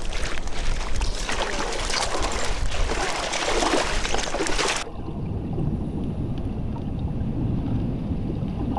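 Water splashing and sloshing; about five seconds in it cuts abruptly to a low, dull rumble.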